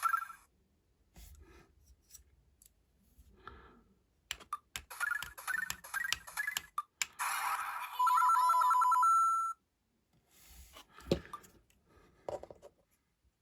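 Electronic beeps and jingles from the speaker of a Lego Super Mario interactive Peach figure, mixed with plastic clicks of the figure being handled on Lego pieces. A loud steady two-note tone near the middle lasts about a second and a half and cuts off suddenly.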